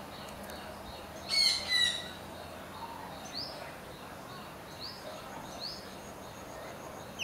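Small birds chirping: two loud bursts of quick chirps about a second and a half in, then several short rising whistled notes, over a faint run of repeated high notes.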